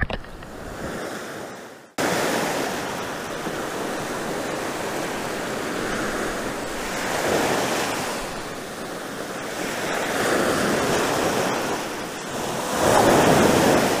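Sea surf breaking and washing up a sandy beach: a steady rushing wash that swells louder as waves come in, three times. It starts after a brief drop to silence about two seconds in.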